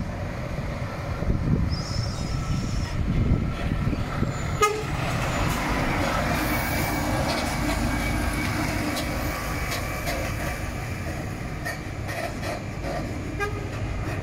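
Scania P420 tractor unit's straight-six diesel engine running as it pulls a fuel tanker semi-trailer slowly round a roundabout and past, with a sharp knock about four and a half seconds in.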